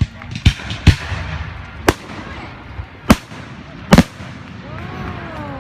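Fireworks going off: five sharp bangs spread over about four seconds, with a crackling hiss after the early ones. A voice calls out near the end.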